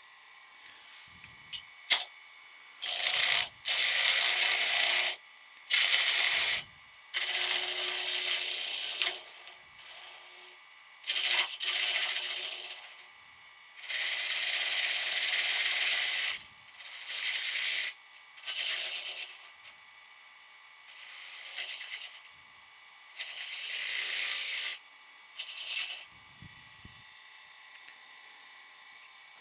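Workshop tool noise in about a dozen short bursts, each starting and stopping sharply and lasting one to two seconds, with a faint steady hum between them.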